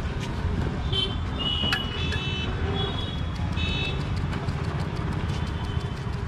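Steady street-traffic rumble with short, high vehicle horn toots repeating from about one to four seconds in, and a few sharp clicks.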